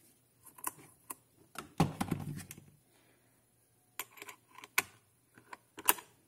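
Handling clatter of a chainsaw and hand tools: scattered clicks and light knocks, with one heavier thump about two seconds in.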